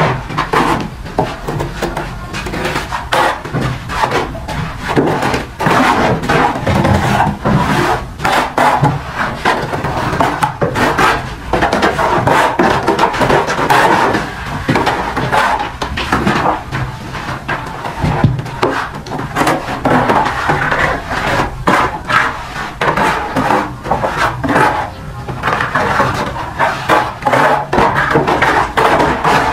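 Steel plastering trowel scraping mortar off a hand-held board and slapping and spreading it onto a brick wall: an irregular, fast run of scrapes and knocks.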